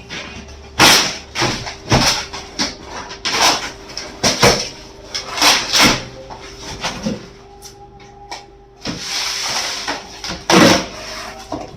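A string of sharp knocks and clatters from objects being handled, with a longer scraping, rustling noise about nine seconds in. A faint steady hum runs underneath.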